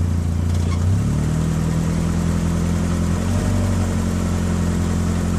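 An engine running steadily, its pitch stepping up about a second in.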